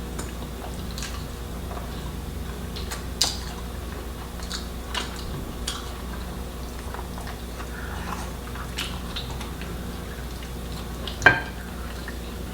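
Eating at a table: chewing and scattered small clicks of dishes and utensils, with one sharp clack near the end, over a steady low hum.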